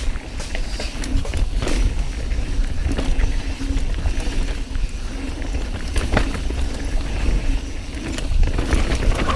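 Mountain bike riding down a dirt trail: tyres rolling over rough ground, the bike rattling with many sharp knocks and clicks, and wind buffeting the microphone.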